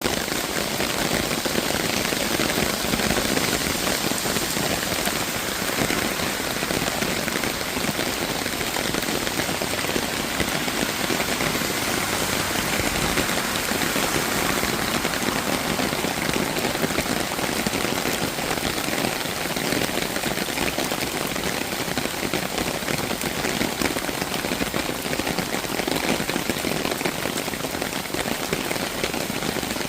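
Steady rain falling on a surface: an even, unbroken hiss of many drops that holds its level throughout.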